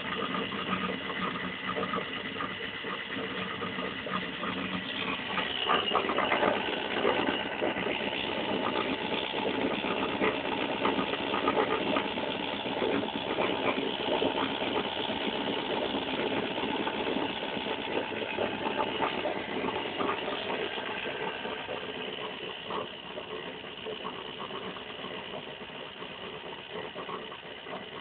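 Homemade magnet motor-generator running, its rotor spinning with a steady, fast mechanical whirr and rattle. It grows louder a few seconds in, then slowly quieter toward the end.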